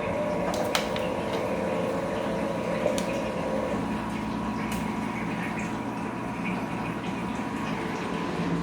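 Bosch Komfort-Klasse washing machine running with water flowing through it and a pump-like whine that fades out about four seconds in, over a steady hum, with a few light clicks.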